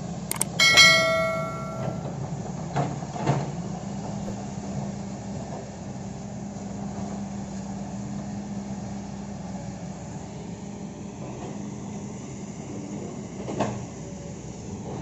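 Kobelco hydraulic excavator working, its diesel engine giving a steady hum, with one loud ringing metallic clang about a second in and a few duller knocks later.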